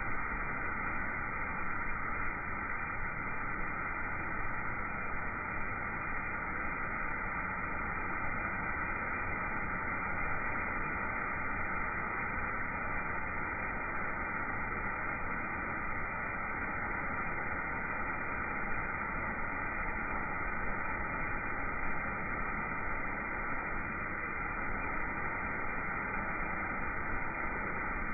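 Road sweeper running, its side gutter broom scrubbing along the curb, heard as a steady, muffled noise that does not change.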